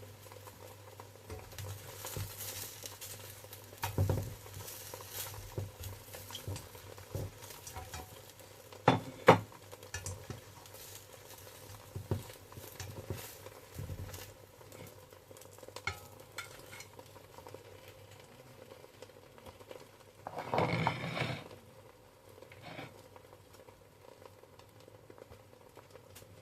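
Bánh xèo batter frying in pans with a low sizzle, broken by scattered clicks and knocks of a utensil against the pan. There is a sharp knock about nine seconds in and a louder noise lasting about a second around twenty seconds in.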